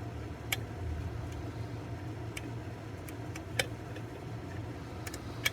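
Small, sharp clicks of a lock pick working the pins and warding inside an EVVA DPI pin-tumbler lock, about six scattered ticks with the loudest about three and a half seconds in, over a steady low hum.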